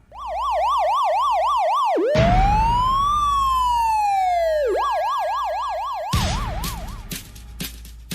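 Electronic siren: a fast yelping warble, then one slow rise and fall starting about two seconds in, then the fast yelp again until about seven seconds in. A deep boom sounds at about two and about six seconds, and drum hits begin near the end.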